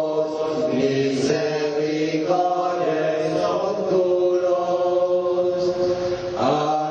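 A group of voices singing a slow song together in unison, holding long notes that change pitch every second or so.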